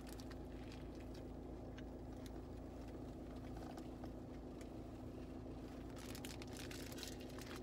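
Faint steady hum inside a car, with soft chewing and the rustle of a burger's paper wrapper as it is eaten.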